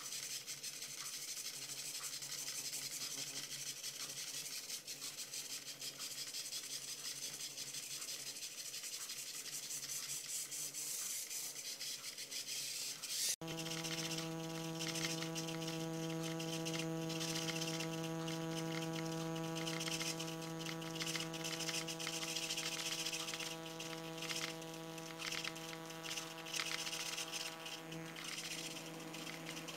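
Small gear-driven servo motors turning the wheels of a self-balancing robot, whirring in quick irregular back-and-forth jerks as they keep correcting its balance. After a cut about 13 seconds in, a steady low hum sounds along with the whirring.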